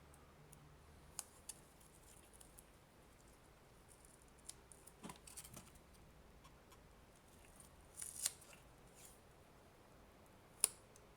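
Faint handling of a roll of electrical tape being wrapped around a cable, with a few scattered sharp clicks and a short crackle of tape; the loudest click comes near the end.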